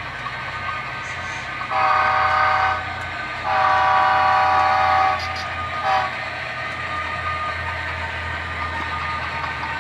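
Horn of a sound-equipped model diesel locomotive: two long blasts and a short one, over a steady low hum.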